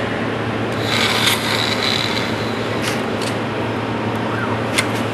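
Machine running steadily with a constant hum and hiss, a brief high-pitched rasp about a second in, and a few sharp clicks later on.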